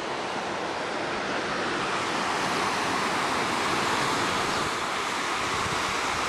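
Mountain stream rushing over rocks through small cascades, a steady even rush of water.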